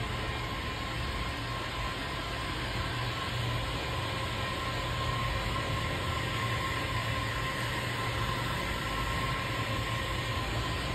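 Handheld electric heat gun running steadily, blowing hot air over window tint film on a car windscreen to shrink it: a steady rush of air with a faint high whine.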